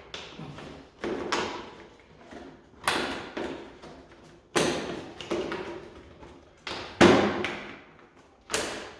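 A series of sharp knocks and clatters, about eight, each dying away quickly, as plastic motorcycle fairing panels and clips are pulled loose and handled.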